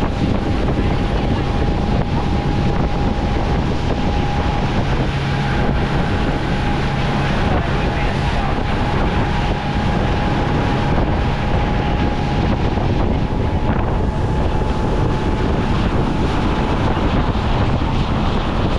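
Motorboat engine running steadily at speed, with wind buffeting the microphone and water rushing past the hull. A thin steady whine runs over the engine and fades near the end.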